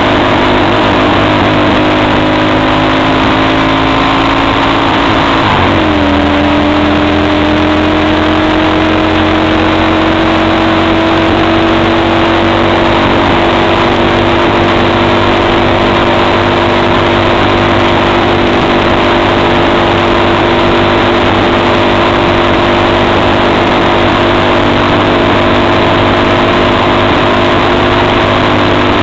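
Single-cylinder engine of an XY250STXE quad running under way at a steady pace over a loud rushing noise. About six seconds in, its pitch dips briefly, then climbs slowly as it pulls on.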